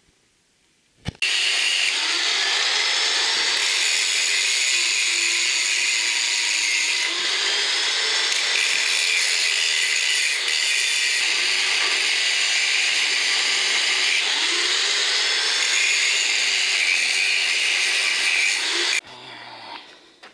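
Electric disc grinder grinding steel, switching on sharply about a second in and cutting off near the end, its pitch repeatedly dipping and recovering as it is pressed into the work. It is grinding back a weld that failed to fuse so the joint can be re-welded.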